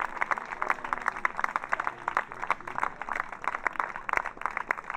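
Audience applauding, the separate hand claps standing out as a dense, irregular patter.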